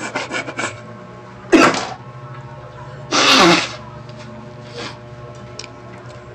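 A man's sharp, noisy bursts of breath from the mouth, like spluttering over a mouthful of drink: a sudden loud one about a second and a half in, a longer one about three seconds in, and a small one near the end.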